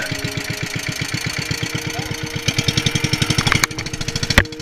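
Small engine of a wooden fishing boat (bangka) running at a steady, rapid chug. It thins out a little near the end, where a single sharp knock sounds.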